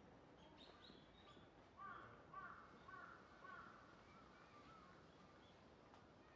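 Faint bird calls over near silence: a few high calls about half a second in, then a quick run of short, repeated calls from about two seconds in that fade out by about five seconds.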